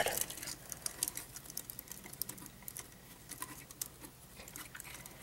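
Faint, scattered small clicks and taps of plastic model-kit parts being handled, as a Gundam figure's hand and a plastic Gatling gun are fitted together and adjusted.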